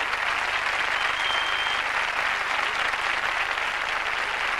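Studio audience applauding steadily, with a short high tone about a second in.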